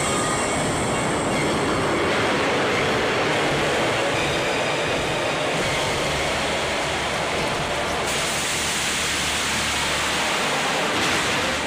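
Dense, steady rushing noise from a dramatic sound effect for a magical fiery serpent streaking through the sky. It holds at one level, shifts in texture a few times and stops just before the end.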